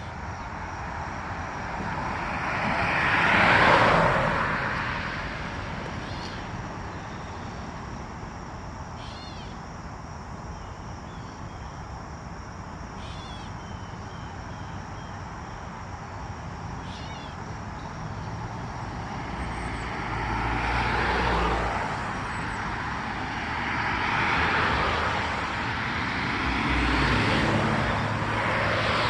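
Road traffic passing by. Vehicles swell and fade about four seconds in and several times in the last ten seconds, with a few faint short chirps in between.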